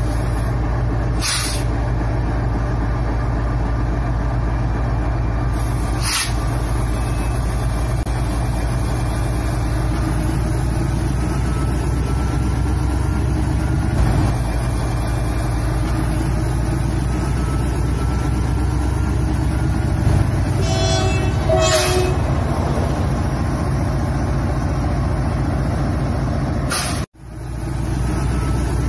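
Diesel locomotive engine sound for a WDG-4G, running steadily with a deep throb. Two short horn toots come about 21 seconds in, and the sound cuts out for a moment near the end.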